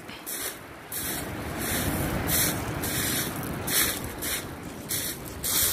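Surf breaking and washing up a shingle beach, swelling in the middle, with footsteps crunching on loose pebbles at a steady walking pace.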